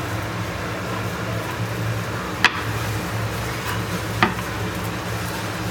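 Two short sharp knocks under two seconds apart, over a steady low hum: chopped coconut pieces being dropped into a mixie jar.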